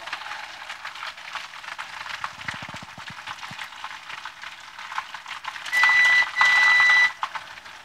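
Oil crackling and sizzling in a skillet as panko-breaded chicken cutlets shallow-fry, lifted with tongs. About six seconds in, a steady high electronic beep sounds for about a second and a half, broken briefly near its start.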